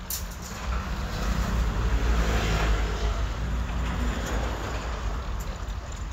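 A motor vehicle passing, its engine and tyre noise swelling over a couple of seconds and then fading, over a steady low rumble.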